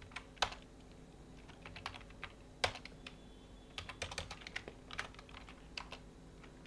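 Typing on a computer keyboard: irregular keystroke clicks in short runs with brief pauses between them.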